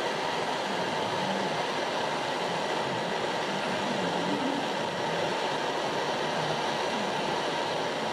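Handheld gas blowtorch burning with a steady hiss while its flame heats a small piece of steel to cherry red.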